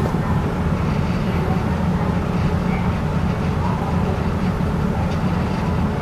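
Steady low rumble of a car ferry's engines and hull vibration while the ship is underway, an even hum with no breaks.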